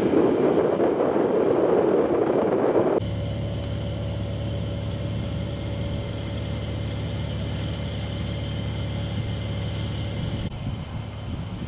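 A loud rushing noise, then after an abrupt cut about three seconds in, a steady low engine hum with a faint high whine.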